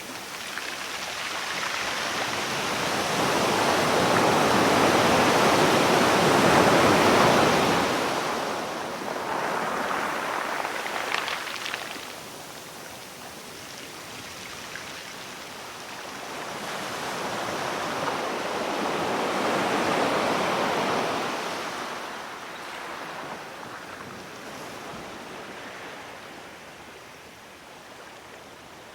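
Sea waves washing in and drawing back in slow swells, loudest about six seconds in and again around twenty seconds in, ebbing to a softer wash between.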